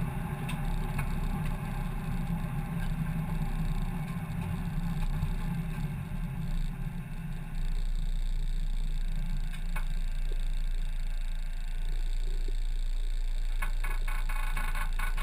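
A race car's engine idling, heard from inside the stripped cabin as a steady low drone that settles into a more even, slightly louder hum about halfway through. A quick rattle near the end.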